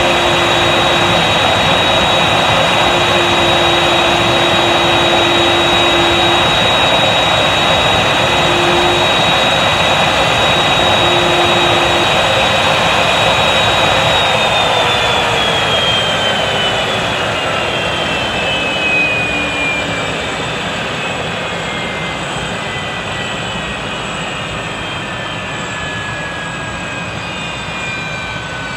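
Airliner turbofan engine running steadily with a loud roar and a high whine. About halfway through, the whine starts falling in pitch and the roar eases as the engine spools down.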